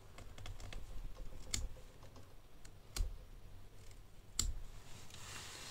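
Grafting knife paring the freshly cut top of a wild pear rootstock: light scraping of blade on wood with small clicks, and three sharper clicks at even spacing.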